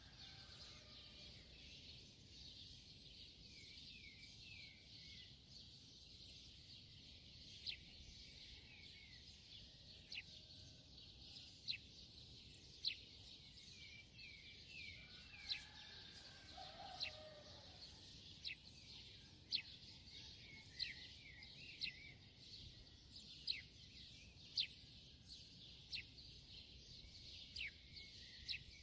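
Faint small birds chirping in the background over a steady hiss. Short sharp chirps come about once a second through the second half, with a lower call near the middle.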